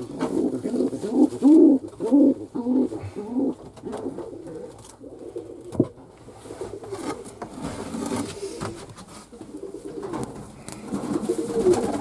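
Domestic fantail pigeons cooing, with a run of repeated rolling coos in the first few seconds and more near the end. A single sharp knock sounds about six seconds in.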